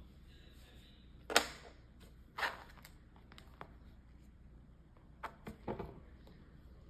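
Plastic Lego pieces being handled, making short sharp clicks and knocks. The loudest comes about a second in, another follows a second later, and a quick run of three or four comes near the end.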